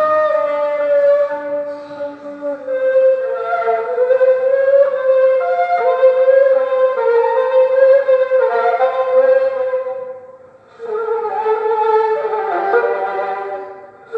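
Kamancheh, the Persian bowed spike fiddle, playing a slow improvised melody in the Mahur mode: long held notes over a lower sustained note for the first few seconds. About ten seconds in the sound dies away briefly, then a new phrase begins and steps downward.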